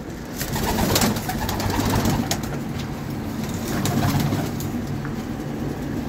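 A flock of domestic pigeons cooing, several low coos overlapping, with a few sharp taps among them.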